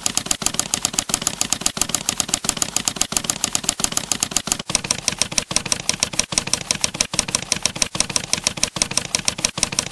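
Typewriter sound effect: a rapid, even run of key clicks accompanying on-screen text being typed out letter by letter.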